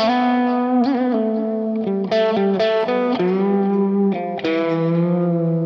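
Electric guitar played through a Fractal Axe-Fx III modelling the FAS Express amp, on the second pickup position: a single-note melodic line with held notes, a bend or vibrato about a second in, and a long sustained note near the end, in a smooth, lightly driven tone.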